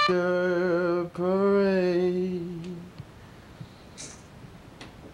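A voice singing two long, low held notes, with a short break between them and the second note falling away after about three seconds.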